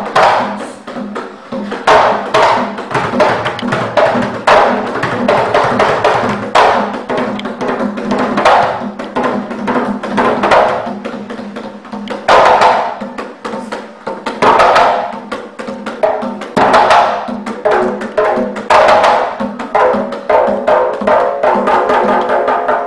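Niiko dance music driven by loud, sharp drum and percussion strikes. Held tones join in near the end.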